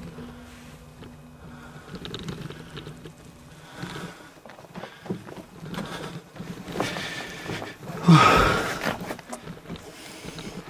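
Scuffing, scraping and clicking as someone moves over rock and loose gravel in a cave. About eight seconds in there is one loud, short burst with a falling low pitch, like a grunt or hard breath.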